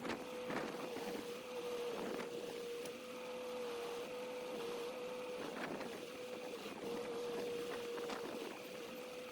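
A machine running steadily, with one held whine that wavers slightly in pitch over a faint background rush.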